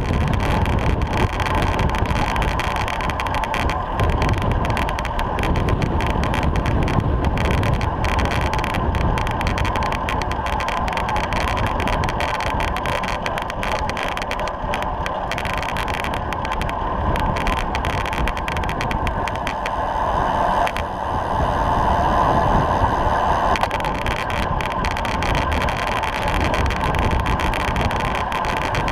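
Steady rush of wind and tyre noise from a road bike's rear-mounted GoPro at racing speed, around 30 mph in a bunch of cyclists. The tone shifts briefly about two-thirds of the way through, duller on top with a stronger mid hum.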